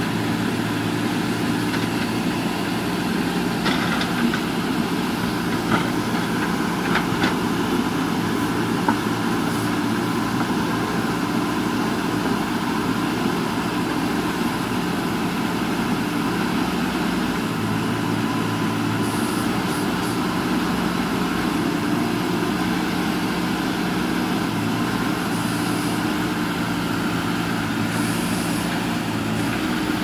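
JCB 3DX backhoe loader's diesel engine running steadily under load as the backhoe arm digs wet earth, with a few short knocks in the first third.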